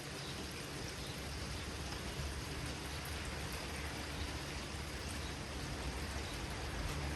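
Steady rain falling in a thunderstorm, with a low rumble underneath that grows a little toward the end.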